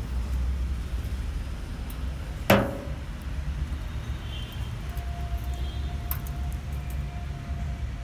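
A steady low rumble, broken about two and a half seconds in by one sharp, loud knock that rings briefly, with a faint steady tone in the second half.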